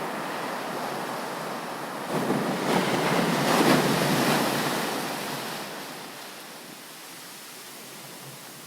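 Ocean waves breaking on a beach: one wave rushes in about two seconds in, builds to a loud crash, then washes out and fades, over a steady hiss of surf.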